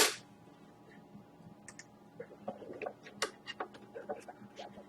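A series of light, irregular clicks and taps, starting a little under two seconds in and coming several times a second.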